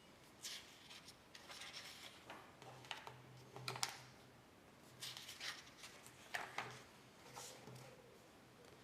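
Faint, scattered scratching and clicking, a few at a time, with one sharper click just before the middle, over a low steady hum.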